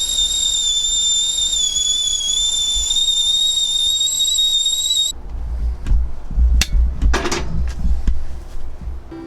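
A steady, high-pitched whistle-like tone, wavering slightly, holds for about five seconds and then cuts off suddenly. A few sharp knocks and a low rumble follow.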